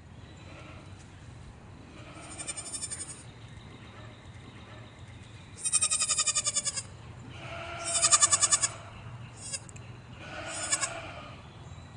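Goats bleating: about five wavering, quavering calls, the loudest about eight seconds in.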